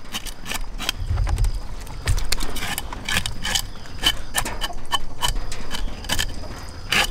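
Hand-held metal scaler scraping scales off a fish in quick, uneven strokes, each a short rasping click, with a few dull knocks against the wooden board about a second in.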